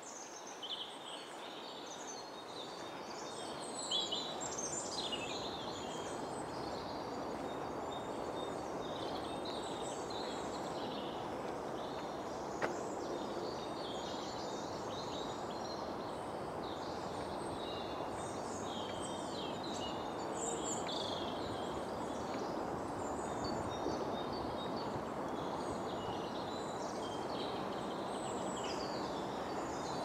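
Woodland songbirds singing and calling, many short high chirps and trills overlapping, over a steady rushing background noise.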